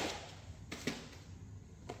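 A few faint clicks and light knocks of VHS tapes and their plastic cases being handled.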